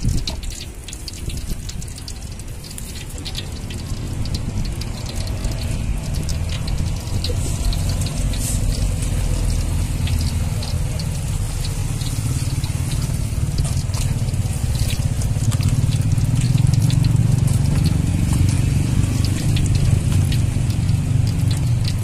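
Hot cooking oil in a wok crackling and sizzling as egg batter and food fry in it, over a steady low rumble that grows louder in the second half.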